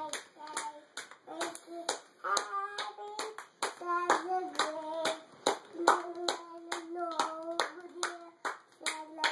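Toddler singing without clear words in short, high-pitched phrases while clapping his hands over and over.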